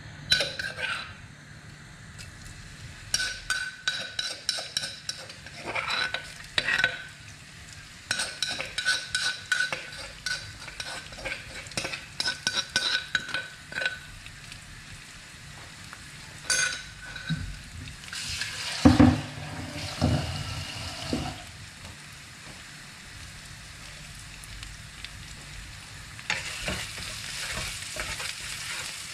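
Food stir-frying in oil in a wok: sizzling, with runs of quick scraping and clinking of a spatula against the pan, a louder clatter about two-thirds of the way through, and a steadier sizzle near the end.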